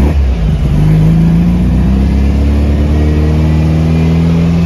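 1954 VW Barndoor bus's air-cooled flat-four engine, fitted with a performance cam, running at a high, rowdy idle while still cold. It drops back from a rev as it begins, holds high and slowly climbs, then rises again near the end.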